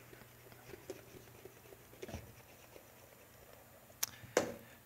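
Faint scattered rubbing and soft taps of a stylus on an interactive whiteboard's surface as writing is erased, then two sharp taps on the board near the end.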